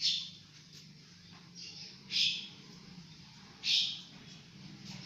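A bird's short, harsh calls, three of them a second or two apart, over a steady low hum.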